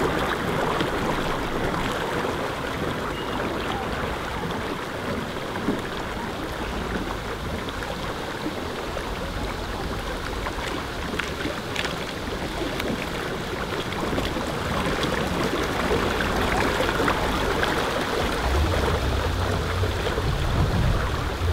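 Steady wash of lake water lapping, with wind rumbling on the microphone near the end.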